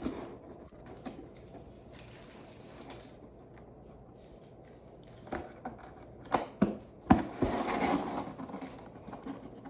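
Cats playing in and against a cardboard box: the box scuffs and rustles, with a cluster of sharp knocks and thumps about five to seven and a half seconds in, then about a second of denser scratching and rustling of the cardboard.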